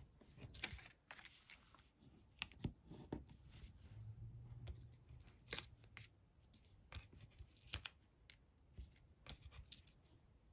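Faint, scattered ticks and light rustling of paper handling as small self-adhesive foam dimensionals are peeled from their backing sheet and pressed onto the back of a card-stock panel.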